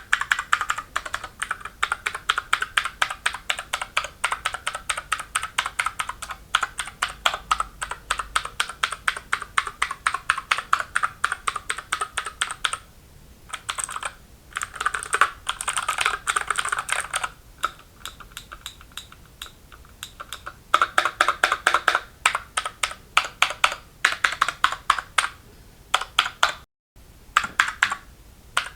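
Keychron K6 mechanical keyboard with clicky Gateron Blue switches being typed on quickly in bursts, each keystroke a sharp click, with a couple of short pauses.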